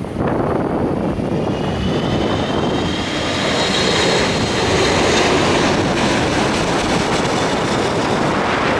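Jet airliner passing low overhead as it comes in to land: a loud engine roar that swells to a peak about halfway through, with a high fan whine that rises slightly in pitch.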